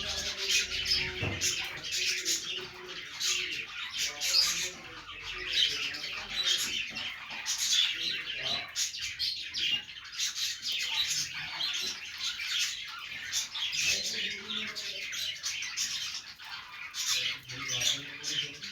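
Budgerigars chirping and warbling, many rapid overlapping chirps and squawks with no break.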